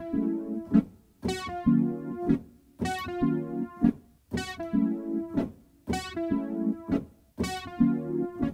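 Electric stage keyboard played with both hands: a short rhythmic figure of crisp chord stabs over a low bass note, repeated about every second and a half.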